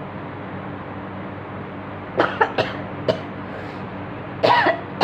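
A woman coughing in short fits, with a few sharp coughs about two seconds in and a longer cough near the end. The coughs come from her trying and failing to make herself sneeze.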